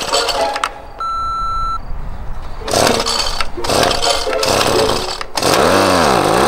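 Recoil pull-starter of a small handheld gas tiller being yanked several times, each pull a rasping rattle. Near the end the two-stroke engine catches briefly, its pitch rising and falling twice. A short steady beep sounds about a second in.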